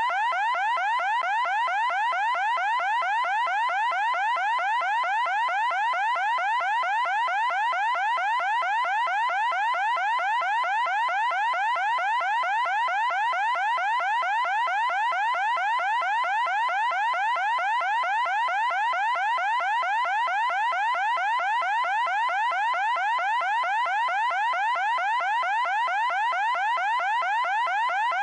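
Shrill electronic alarm tone: a short rising sweep repeated rapidly, a few times a second, steady and unchanging.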